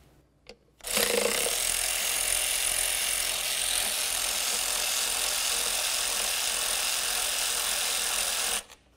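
A cordless power tool runs steadily, spinning out an intake manifold mounting bolt through a long socket extension. It starts about a second in and cuts off suddenly near the end.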